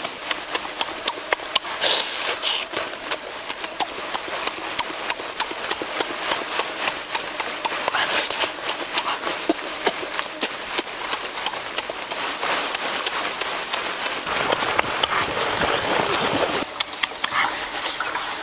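Close wet chewing, lip-smacking and slurping of someone eating cooked octopus by hand: rapid clicking mouth sounds, several a second, with a denser rush of slurping a little past the middle.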